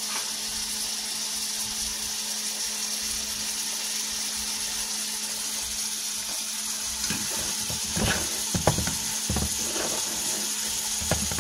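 Scrambled eggs sizzling steadily in oil in a frying pan. From about seven seconds in, a spatula scrapes and knocks against the pan as the eggs are stirred.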